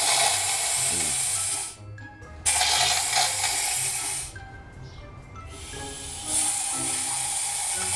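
Unlit propane hissing out of a handheld flamethrower's nozzle in three bursts of a second or two each, cutting on and off sharply: raw gas spraying before it is ignited. Background music plays underneath.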